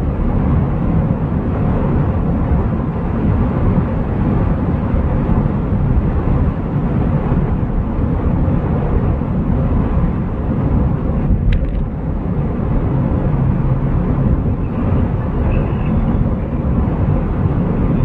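Steady rumble of a car driving along a paved road, heard from inside the cabin: tyre, engine and wind noise. A single short click about eleven seconds in.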